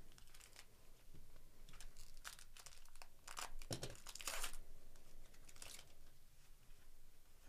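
A 2024 Topps Series 1 baseball card pack wrapper being torn open and crinkled by hand, in several bursts of crackling, loudest about three to four and a half seconds in.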